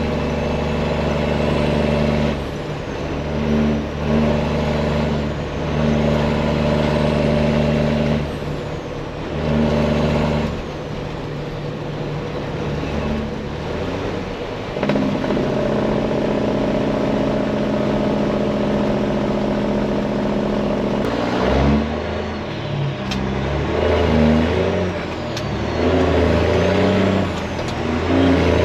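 Detroit diesel semi-truck engine pulling under load. Its exhaust note comes and goes in several surges, then runs steady and turns uneven near the end, with a faint whistle from the turbo gliding up and down above it.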